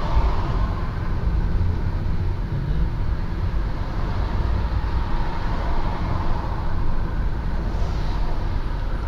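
Steady road and engine noise of a car driving in city traffic, picked up by a dashcam inside the cabin: an even low rumble with no sudden events.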